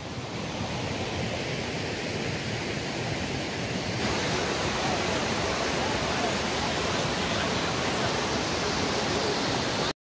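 Water of a small rocky waterfall and creek rushing over stones: a steady hiss that gets louder about four seconds in.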